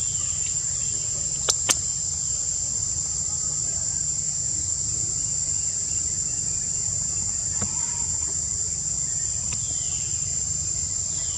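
Steady high-pitched drone of insects, with two sharp clicks about a second and a half in and a few faint falling chirps now and then.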